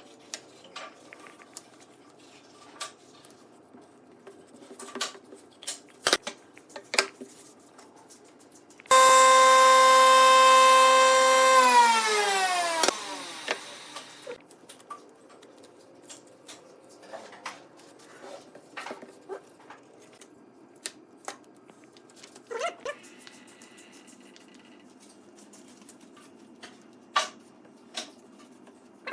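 An electric power tool's motor runs at a steady pitch for about three seconds, then winds down and coasts to a stop. Scattered light knocks and taps come before and after it.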